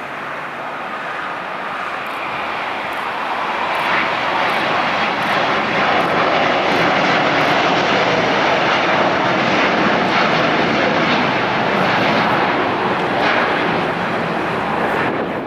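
Engines of a large jet airliner, a loud, steady rushing noise that builds over the first few seconds and then holds.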